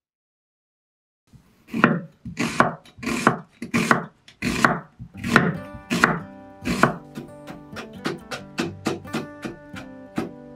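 A kitchen knife slicing through a new onion onto a wooden cutting board: after a moment of silence, sharp cuts come at an even, unhurried pace. About two-thirds of the way in they give way to quicker, lighter strokes as the knife cuts carrot into thin strips.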